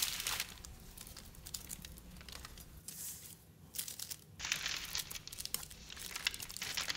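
Parchment paper rustling and crinkling under the dough as a metal bench scraper is pressed down through it, with light irregular taps; the noise dies down for a moment about three seconds in, then picks up again.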